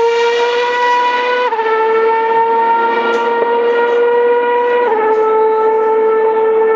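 Formula One car's 2.4-litre V8 engine at high revs, accelerating away down the straight. Its high, steady wail climbs slowly in pitch and drops sharply twice, about one and a half seconds in and about five seconds in, as the car changes up a gear.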